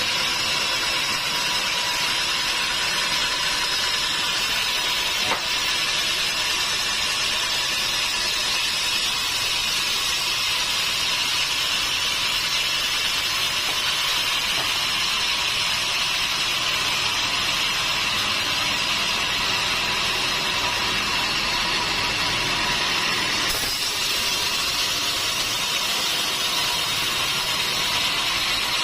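Sawmill machinery running steadily with a constant high hissing whine and a steady tone, shifting slightly about three quarters of the way through.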